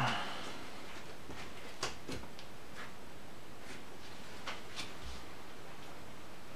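Playing cards being handled and set down on a plastic-covered table: a few light, short clicks and taps over a steady background hiss.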